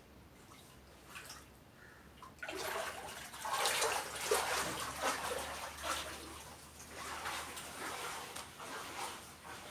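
Water splashing and pouring, starting about two and a half seconds in, irregular and uneven, loudest soon after it starts and easing off toward the end.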